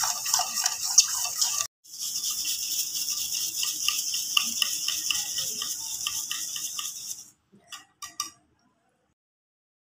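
A metal spoon stirring and scraping quickly against a ceramic bowl of milk, then, after a short break, a wire whisk beating the liquid in fast, even strokes that rattle against the bowl. The whisking stops about seven seconds in, followed by two or three light taps.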